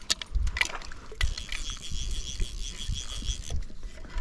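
Water splashing and gear knocking as a hooked tiger trout is played in the shallows. About a second in, a fast, even high-pitched ticking starts and lasts about two seconds.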